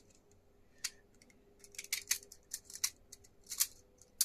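3D-printed plastic airsoft magazine parts handled and fitted together: a scattered run of sharp, light clicks and taps, busiest in the second half.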